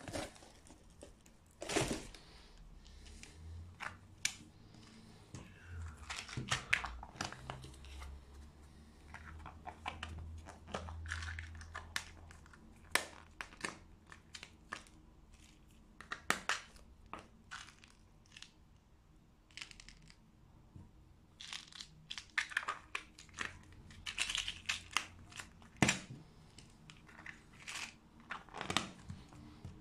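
Small green plastic tins of 5.5 mm pellets being handled: lids pressed shut and tins set down and stacked, making a long string of irregular clicks and clacks with some rustling.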